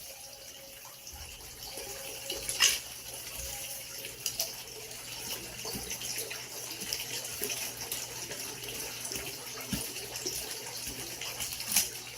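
Steady running, splashing water, with a few sharp clicks, the clearest about two and a half seconds in and another near the end.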